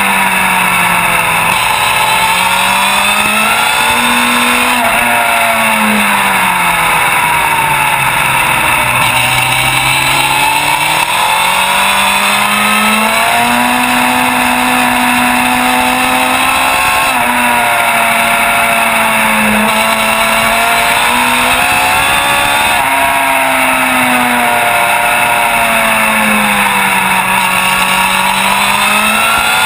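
A racing motorcycle's engine at race pace, recorded on the bike itself. Its pitch climbs and drops again and again through the corners and gear changes, dipping lowest about ten seconds in, over a steady rush of noise.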